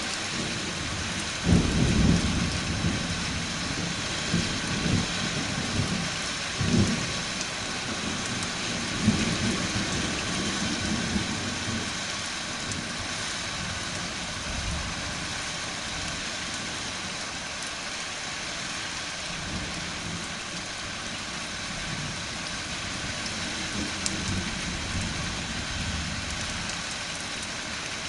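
Steady rain hissing, with thunder rumbling low through the first half: the loudest peal comes about a second and a half in and further rolls follow until about twelve seconds in. After that the thunder dies away and the rain carries on alone.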